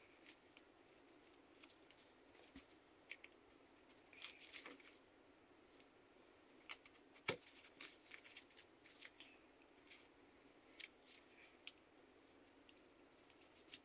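Small carving knife slicing thin shavings from a limewood Christmas-tree blank: faint, scattered short cutting and scraping sounds, with one sharper click about seven seconds in.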